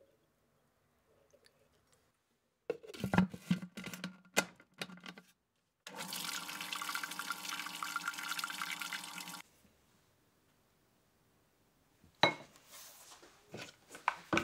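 Food processor motor running for about three and a half seconds, churning hazelnut paste with olive oil, then cutting off suddenly. Before it come a few sharp clicks and knocks of the bowl and lid being handled, and more knocks near the end.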